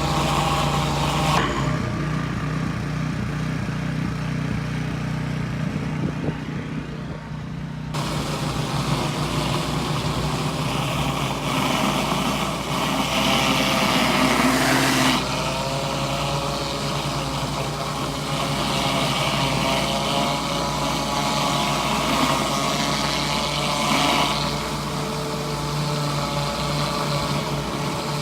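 Pressure washer engine running steadily, with the hiss of high-pressure water spraying from a surface cleaner onto concrete. The spray hiss stops about a second and a half in and comes back after several seconds, while the engine keeps running.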